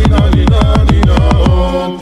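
Electronic dance music with fast repeated hits, each a low tone that drops in pitch, about eight a second; the pattern breaks off just before the end.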